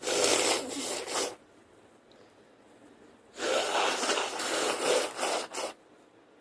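A woman with a cold blowing her nose twice: a short blow at the start, then a longer one a few seconds later.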